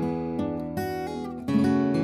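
Background music: acoustic guitar playing, with notes struck a few times and a fuller strum about three-quarters of the way in.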